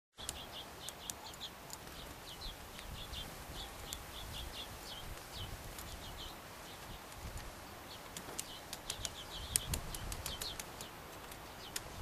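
Small garden birds chirping with many short, repeated high notes, mixed with sharp ticks from a great spotted woodpecker pecking at peanuts through a wire-mesh feeder.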